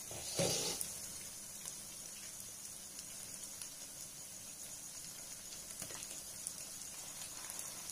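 Sabudana vadas shallow-frying in refined oil in a nonstick pan, the oil sizzling faintly with fine crackles, and a brief louder noise about half a second in.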